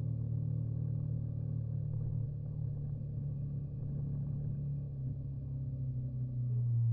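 Motorcycle engine running at a steady cruise, a constant low drone with wind and road noise, picked up by a camera clamped to the bike's mirror; it grows slightly louder near the end.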